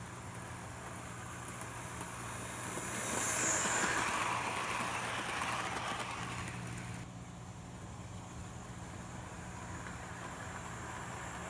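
Hornby Flying Scotsman OO-gauge model train running on its loop of track, a motor whirr and wheel noise that grows louder as it comes near, peaks about four seconds in and then fades. The sound drops abruptly about seven seconds in and carries on more steadily.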